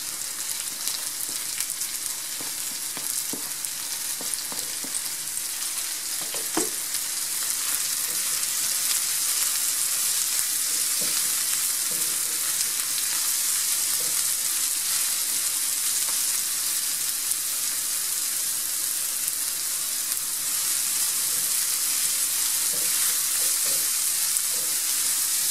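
Chopped leek and onion sizzling in oil in a frying pan, stirred with a plastic spatula, with a few light scrapes as the leek is pushed off a cutting board into the pan. The sizzle grows louder about eight seconds in and then holds steady as the leek heats through.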